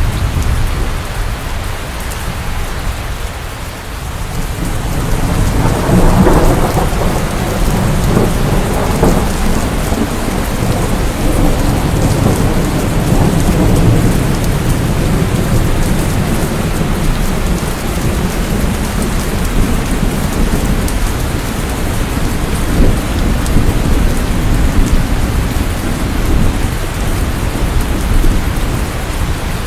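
Steady heavy rain with rolling thunder. A low rumble dies away over the first few seconds, and another swells up about six seconds in and keeps rolling under the rain.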